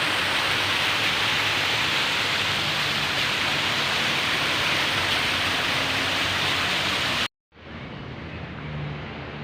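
Fountain water splashing in a steady, loud hiss. It cuts off abruptly a little over seven seconds in, and a much quieter low hum follows.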